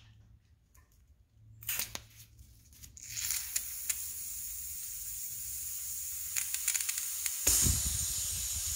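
Pressurised nitrogen hissing out of a Fox shock through a syringe needle pushed into its rubber-plugged fill port. The hiss starts about three seconds in after a few faint clicks, and grows louder near the end with a low rumble under it.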